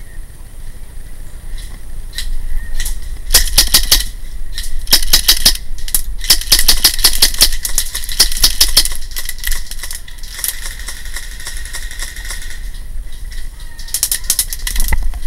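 Airsoft guns firing in rapid bursts of sharp clattering shots, about a dozen a second, several bursts in the middle and one more near the end.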